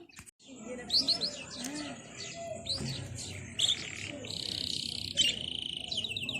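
Small birds chirping busily: many quick high chirps that slide downward, with a fast trill in the middle and a rapid run of chirps near the end.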